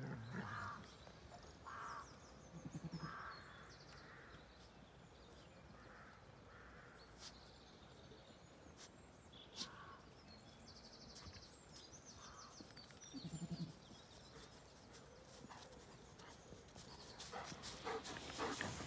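Faint bleating of Zwartbles sheep: repeated short, wavering higher-pitched lamb calls, with two deeper ewe calls about three seconds in and again near thirteen seconds. Birds chirp in the background, and there is rustling near the end.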